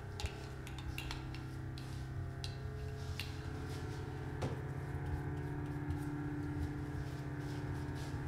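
A low, steady, ominous drone with a few faint held higher tones, scattered with irregular clicks and crackles, one sharper about four and a half seconds in.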